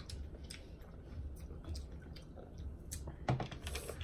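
Faint sipping and swallowing noises with small wet clicks, from people taking gulps of flavored water to bring up burps, with one slightly louder short sound about three seconds in.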